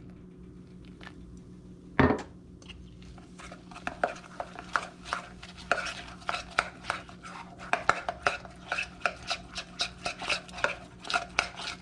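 A metal spoon stirring thick beer tempura batter in a stainless steel mixing bowl, clinking against the bowl about four or five times a second. It comes after a single loud knock about two seconds in.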